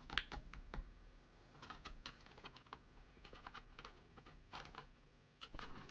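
Faint, irregular small clicks and taps from a modem's plastic casing, its parts and its screws being handled during reassembly, the sharpest just after the start.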